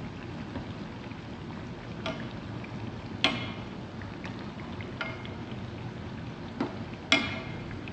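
Oil sizzling steadily as donuts deep-fry in a pot, with a few sharp clicks of a metal slotted spoon against the pot or the donuts, the loudest about three seconds in and again just before the end.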